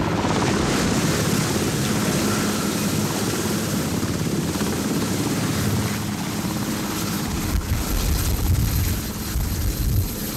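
Sikorsky VH-3D Sea King helicopter hovering low nearby, its rotor and turbine engines running loud and steady. The low rotor beat grows heavier about three-quarters of the way in.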